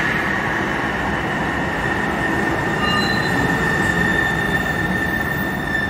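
Sound Transit Link light rail train rolling past along the platform as it pulls into the station: the steady rumble of the cars, with a steady high whine over it and a few brief higher tones about halfway through.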